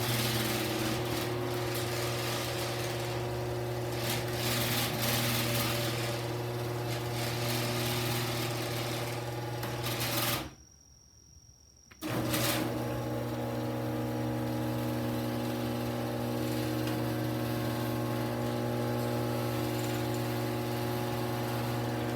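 Genie Pro 98 half-horsepower screw-drive garage door opener running, its motor humming steadily as it drives the door. It stops about ten seconds in and starts again a second and a half later.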